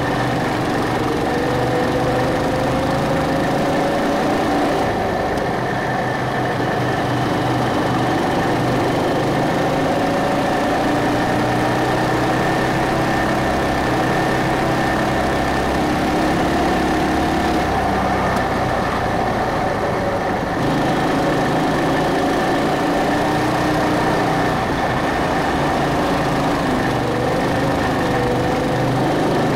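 Go-kart engine running while the kart is driven around the track, its pitch rising and falling as the throttle is opened and eased through the corners, with a steady high whine alongside.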